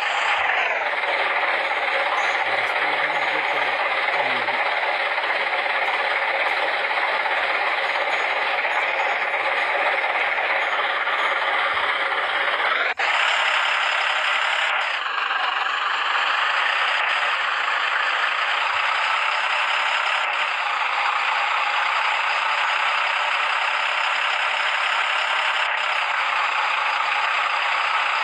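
Heavy road construction machinery running with a steady mechanical noise, cutting abruptly about halfway through to a similar steady machine noise.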